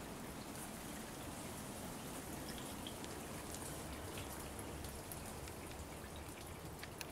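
Water trickling and dripping steadily, with scattered small drips.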